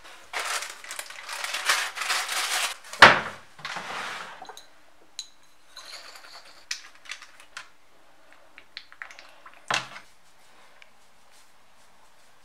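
Small objects being handled and set down on a hard surface: a rustling for the first couple of seconds, a sharp knock about three seconds in, scattered light clicks, and another knock near ten seconds.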